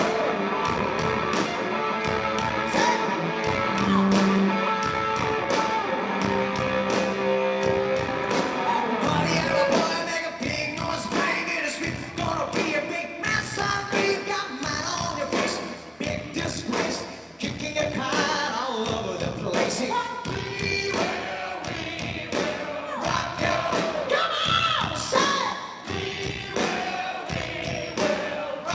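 Live rock band playing on stage with a steady drumbeat: held instrumental notes for the first several seconds, then singing voices over the band.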